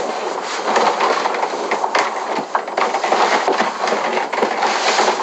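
Knocks, bumps and rustling as a person squeezes his body into an empty upright refrigerator, over a steady loud hiss.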